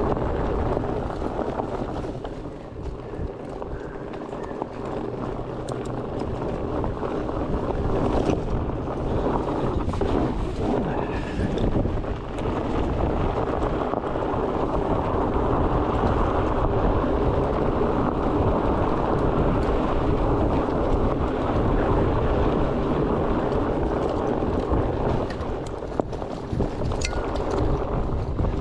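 Wind buffeting the microphone over the rumble of knobby fat-bike tyres rolling on a dirt trail, a steady rush. There are a couple of sharp clicks near the end.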